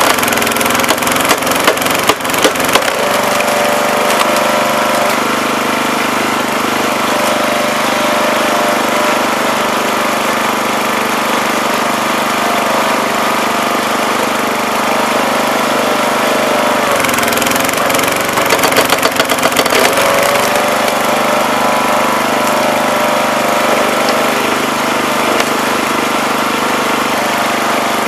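Wood splitter's small 5 hp gasoline engine running steadily, driving a newly fitted 11 gpm two-stage hydraulic pump. As the ram forces the wedge down into a tough oak round, the engine's note sags under load twice, near the start and about two-thirds through, with sharp cracks as the wood splits.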